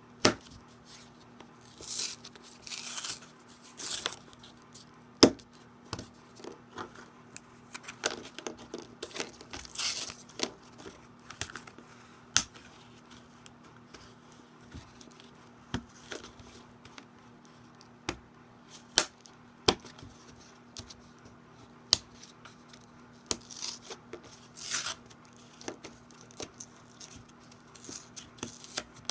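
Retail tool packaging being torn and pried open by hand: scattered crinkling rustles, tearing and sharp clicks, over a faint steady hum.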